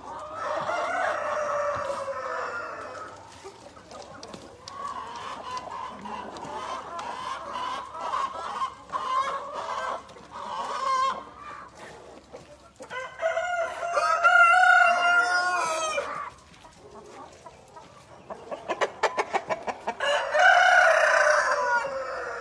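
Black Copper Marans chickens: a rooster crows three times, at the start, about two-thirds of the way in, and again near the end, while hens cluck between the crows.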